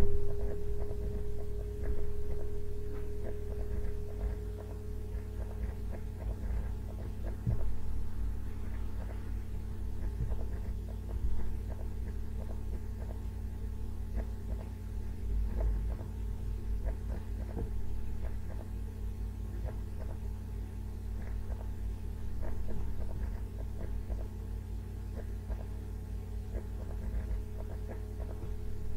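Steady electrical hum and low rumble of the recording's background noise, with a steady tone that fades over the first few seconds and faint scattered ticks.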